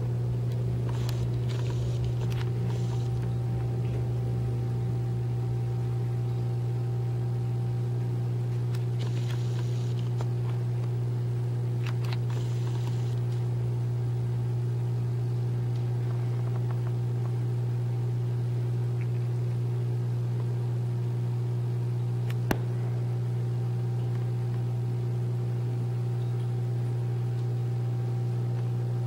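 Steady low hum of running aquarium equipment, with a few faint rustles in the first half and one sharp click about two-thirds of the way through.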